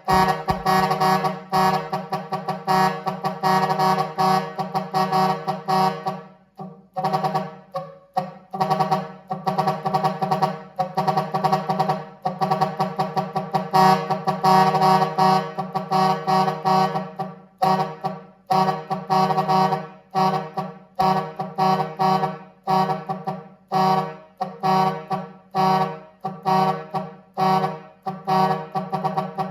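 Eight-trumpet musical air horn set, run by an electronic horn controller, playing a tune in short, quick notes.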